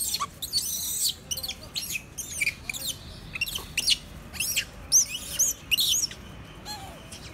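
A rapid run of short, high-pitched chirping calls, about a dozen, some swooping up and down in pitch, stopping about six seconds in.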